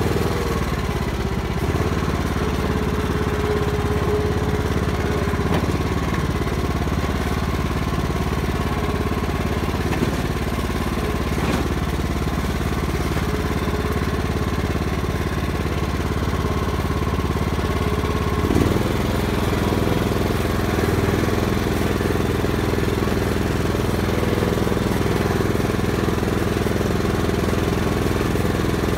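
Riding lawn mower engine running steadily. Its pitch drops slightly about a second in, and the tone shifts again about two-thirds of the way through.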